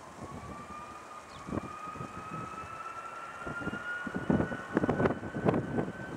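Boeing 757-223's Rolls-Royce RB211 turbofans spooling up to takeoff thrust at the start of the takeoff roll: a whine of two pitches that rises slowly, with a gusty low rumble growing louder from about four seconds in.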